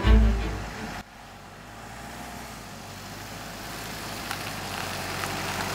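A deep closing note of background music ends abruptly about a second in. Then a small truck's engine runs with a steady low hum and its tyres hiss on a wet, slushy road, growing slowly louder as it comes closer.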